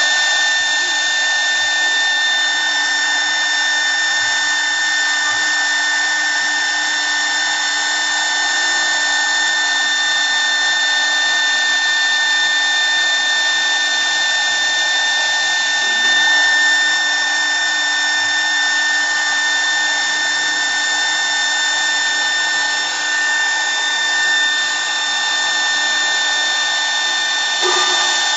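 CNC wood lathe running steadily at high speed: a constant machine whine with several fixed high tones over an even hiss.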